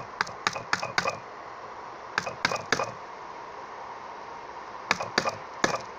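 Small hammer tapping the retaining pins back into an Umarex T4E Walther PPQ pistol frame during reassembly. The taps are sharp and slightly ringing, and come in three short runs: about five quick taps, then three, then three more.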